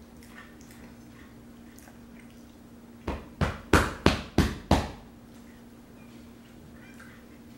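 A quick run of six loud thumps, about three a second, about three seconds in, made as a man jolts about on a sofa. A faint steady hum sits underneath.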